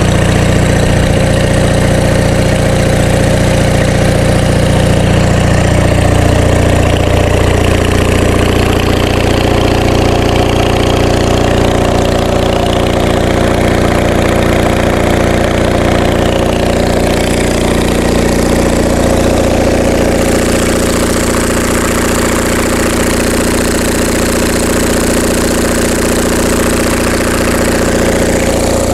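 Onan MDJE two-cylinder diesel generator set running steadily at governed speed.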